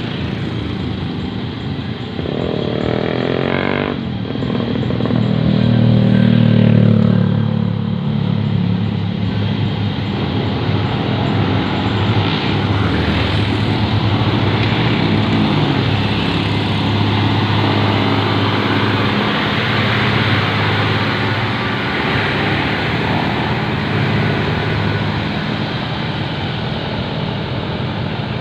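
Heavy diesel truck engine running hard under load, revving up about two to four seconds in and then holding a loud, steady drone.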